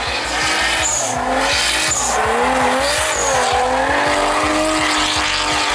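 A drift car's engine revving up and down as it slides, with its tyres squealing against the tarmac.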